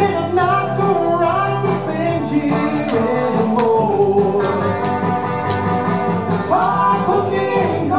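A song playing: a singing voice over guitar accompaniment.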